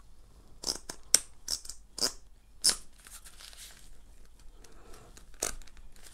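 Plastic clicks and rustling as the headband slider of an EKSA E1 wireless over-ear headset is adjusted by hand. There is a run of about six sharp clicks in the first three seconds, and one more a little after five seconds.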